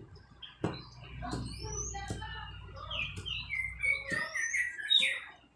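Kitchen knife chopping chilies on a wooden cutting board, a few separate knocks, with birds chirping over it; a run of falling chirps comes near the end.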